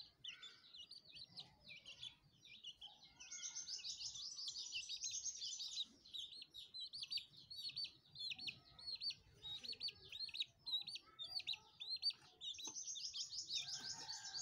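High-pitched bird chirping: a string of short chirps, with two runs of fast, trilled notes, one about three seconds in and another near the end.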